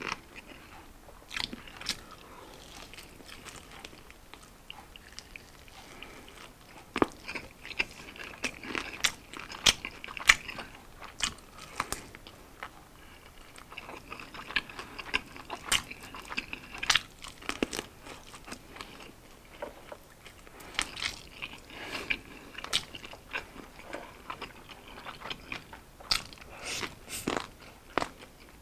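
A person biting and chewing garlic barbecue fried chicken wings: irregular crunchy bites and wet chewing clicks, in clusters with short lulls between.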